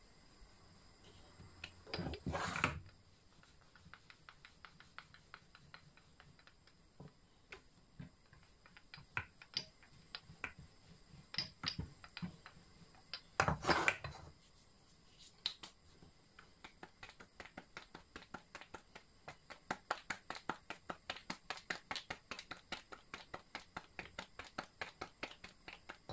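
Wooden rolling pin working a stuffed potato paratha on a granite countertop: a run of light clicks and knocks that settles into a steady rhythm of about three a second in the second half. Twice a louder brief clatter, the second as a hand reaches into the aluminium flour bowl.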